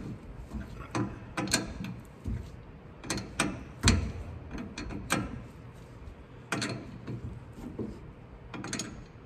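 Hand-tool work on the drive shaft fasteners: irregular metallic clicks and clinks of a wrench or ratchet, with one heavier knock about four seconds in.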